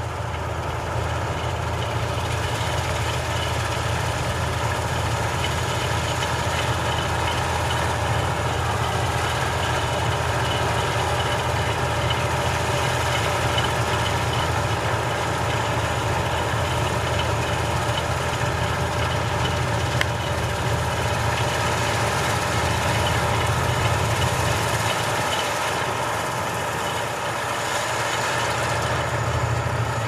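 New Holland combine harvester running steadily while cutting standing wheat: a continuous engine drone mixed with the whirr of the header and threshing machinery. The low rumble drops back briefly near the end, then returns.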